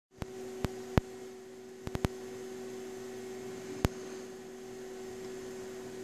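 Steady low hum with hiss, broken by a handful of sharp clicks in the first four seconds, including a quick run of three about two seconds in.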